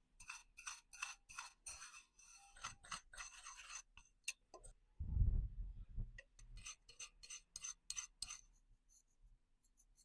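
Small metal watchmaker's tools clicking and scraping against the parts of a wristwatch movement during servicing, in quick runs of light ticks. A brief, louder low rumble comes about five seconds in.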